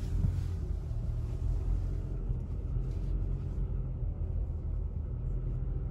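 Steady low rumble inside the cabin of a moving Toyota RAV4: road and engine noise while driving.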